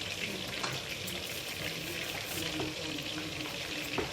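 Chicken wings frying in hot oil in a pan: a steady sizzle with scattered small crackles and pops.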